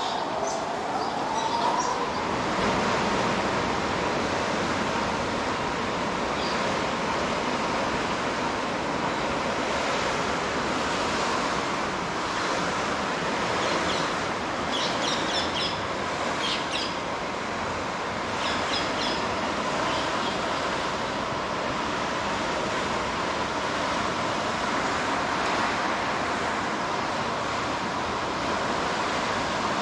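Steady outdoor ambience: a constant noise bed with a thin steady whine, which dips in pitch and comes back up about a second in, and birds chirping in short bursts about halfway through.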